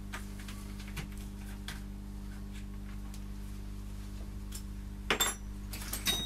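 Hand tools clinking lightly on metal at an engine block's crankshaft over a steady electrical hum: a few faint ticks, then two sharper metallic clinks with a short ring about five and six seconds in.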